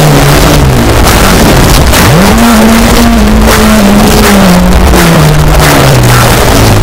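Loud, dense extreme metal recording: a wall of distorted guitar and drums, with a low pitched line that sweeps up sharply about two seconds in, holds, then slides slowly back down.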